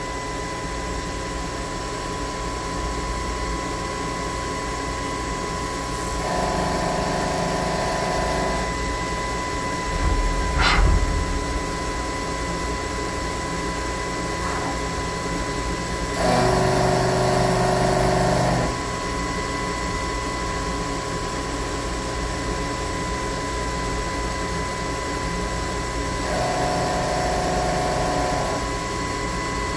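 Milling machine running with a steady whine while cutting the RMR optic pocket into a Glock 34 slide; the sound grows louder for about two and a half seconds three times, about ten seconds apart, as the cutter makes its passes. A brief sharp knock about a third of the way in.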